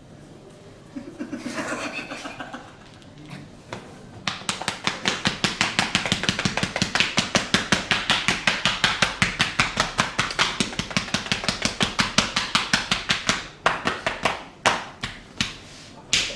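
Barber's hands slapping a client in a rapid percussive massage, about seven or eight even strikes a second for around nine seconds, then a few slower single slaps near the end.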